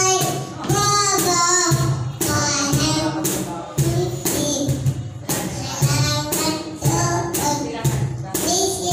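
A young girl sings a Filipino children's song into a microphone, accompanied by a steady hand-played cajón beat of low thumps and sharper slaps.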